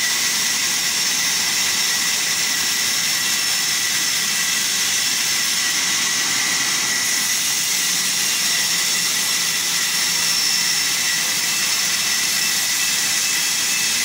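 Large vertical band saw ripping a log lengthwise: a steady high whine over the hiss of the blade cutting, holding the same pitch throughout.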